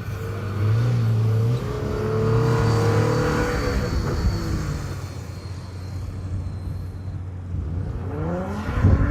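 A 4x4's engine revving hard on a sand dune climb: the pitch rises, then drops away about four seconds in. It rises again, louder, near the end.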